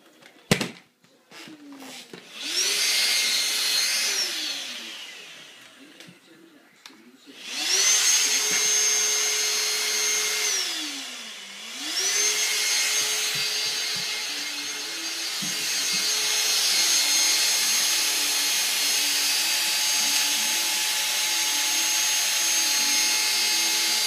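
Cordless handheld vacuum cleaner switched on and off at its trigger. The motor whines up to speed, runs a couple of seconds and winds down with falling pitch, starts again and runs about three seconds, dips and spins straight back up, then runs steadily. A single sharp knock comes about half a second in.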